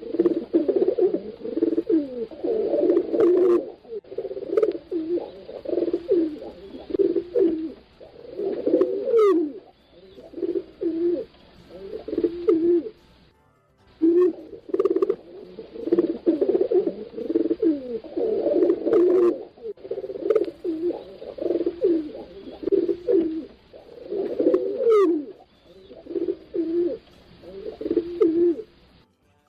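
Pigeons cooing: many overlapping, repeated low coos, with a few faint higher chirps. Brief dropouts about halfway and near the end, and the same stretch of cooing repeats roughly every sixteen seconds, as in a looped recording.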